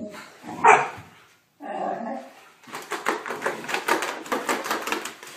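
Dogs barking and yipping during rough play, one of them wearing a plastic cone collar. A single sharp yelp comes about a second in, and a quick run of short barks follows in the second half.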